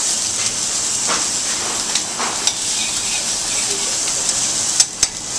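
Salmon fillet searing skin-side down in smoking-hot oil in a cast iron pan: a steady, high sizzle. Two sharp clicks near the end.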